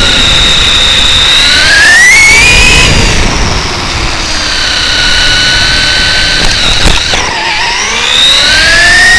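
Traxxas E-Revo RC truck's Hobbywing 2200kv sensored brushless motor and geartrain whining, heard from a camera mounted on the truck, with road and wind rumble underneath. The whine rises in pitch as the truck speeds up about two seconds in, holds steady, drops, then climbs again near the end. A short knock comes about seven seconds in.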